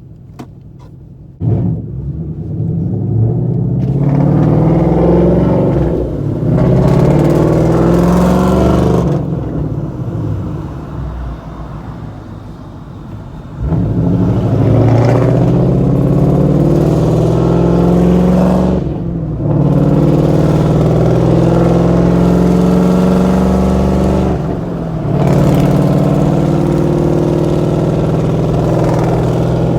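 Straight-piped 5.0-litre V8 exhaust, heard from inside the car, accelerating in several pulls with the pitch rising on each. It eases off to a quieter run in the middle, then pulls hard again, breaking off briefly twice in the second half as the gears change.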